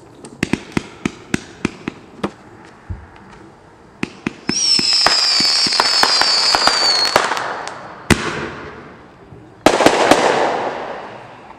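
Consumer fireworks cake firing at night. A rapid string of sharp pops comes first, then a loud whistle of several shrill tones falling slightly in pitch for nearly three seconds. A single sharp bang follows, then a burst of crackling that fades out.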